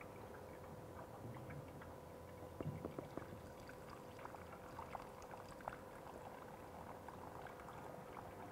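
Water poured from a plastic bottle into the priming opening of a small electric centrifugal pump: faint irregular splashing and dripping, busiest about three seconds in, over a faint steady hum. This is the pump being primed, its casing filled with water so that it will not suck air when started.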